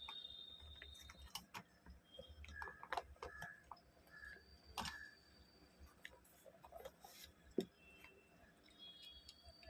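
Faint, scattered clicks and light taps from handling a small plastic trimmer during reassembly, with one sharper knock about seven and a half seconds in.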